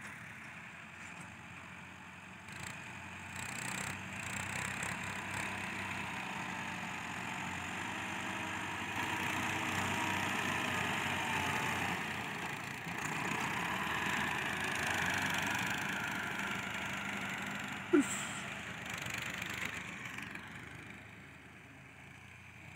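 Massey Ferguson 385 tractor's four-cylinder diesel engine running steadily under load while it pushes soil with a front blade. It grows louder as the tractor comes close, then fades. One sharp knock sounds late on.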